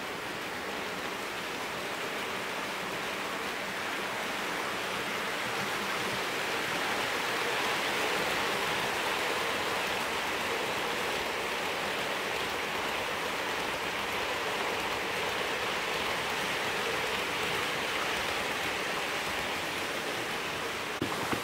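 OO gauge model trains rolling along the track: a steady rushing rumble of small metal wheels on the rails and running gear. It grows a little louder toward the middle as the Hornby Class 43 HST passes close by, then eases off.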